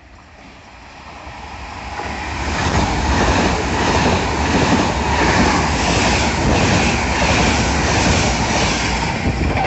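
Frecciarossa high-speed train running through the station at speed: the rush of wheels on rail and displaced air builds over the first few seconds as it closes in, then holds loud as the coaches pass, with a regular clatter of wheelsets about one and a half times a second.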